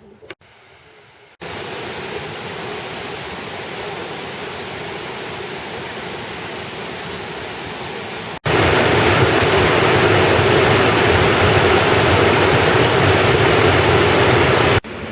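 Waterfall: a steady rush of falling water that cuts in sharply about a second and a half in and becomes much louder and fuller about 8 seconds in, then drops back near the end.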